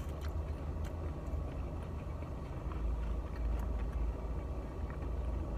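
Steady low hum of a car idling, heard inside its cabin, with faint chewing of french fries.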